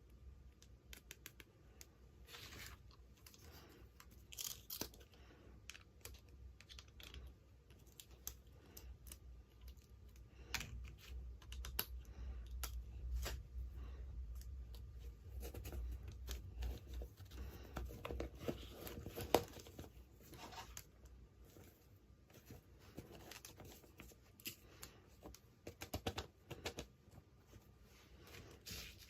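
Toy packaging being torn open and handled close up: tearing and crinkling, with many small sharp clicks and taps of plastic pieces.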